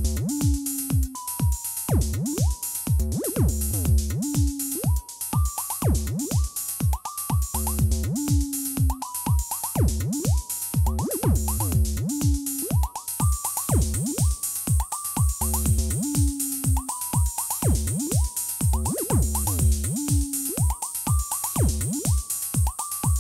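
Live electronic techno/house played on hardware drum machines and synthesizers: a steady, evenly spaced kick drum beat with hi-hats and short repeating synth notes. About thirteen seconds in, the hi-hats get brighter and busier.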